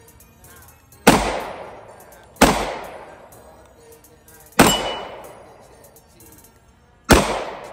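Four single 9mm pistol shots, fired one at a time with a second or two between them, each followed by a long echo that dies away.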